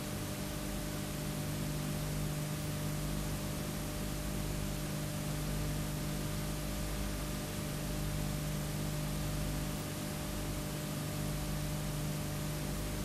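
Steady hiss with a low electrical mains hum, unchanging throughout, with no voices or other sounds.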